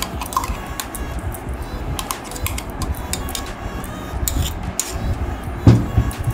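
Metal spoon scraping and tapping against a stainless steel mesh strainer as thick blended mango pulp is worked through it, giving many quick irregular clicks, with one louder knock near the end.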